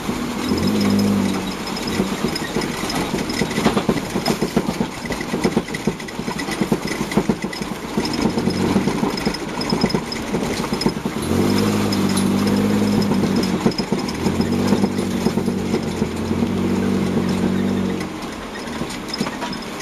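Toyota Land Cruiser Prado 150 rally car heard from inside its cabin, driving hard over a rough muddy track. Many knocks and rattles come through about the first half. In the second half the engine note holds steady in stretches, broken by short dips.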